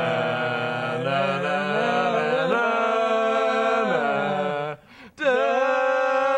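Unaccompanied voices singing long notes in chords that shift every second or so, with a brief break about five seconds in before the singing resumes.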